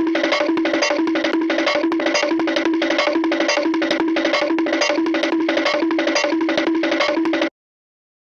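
Short music clip: a repeating riff over a fast, even beat of sharp clicks, stopping abruptly near the end.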